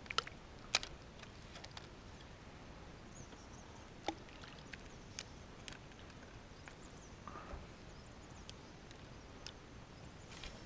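Quiet open-water ambience with a handful of sharp, scattered clicks and taps, the loudest about a second in, and faint short high chirps in the background.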